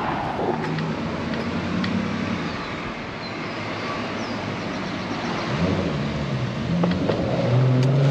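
Road traffic heard from a bicycle: car engines running as vehicles pass close by, over a steady rush of road noise. A louder engine draws near in the last half-second or so.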